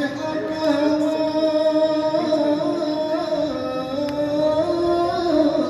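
A man singing a mawwal solo into a microphone: a long, melismatic vocal line held on sustained notes with small ornamental turns, gliding down in pitch near the end.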